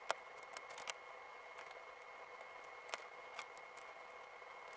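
LEGO bricks being handled and pressed together on a baseplate: scattered sharp plastic clicks, the loudest just after the start, over a faint steady high tone.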